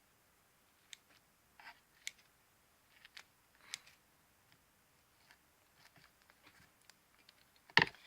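Scissors cutting sticky slime: a few short, faint snips spaced out, then one loud sharp snip near the end.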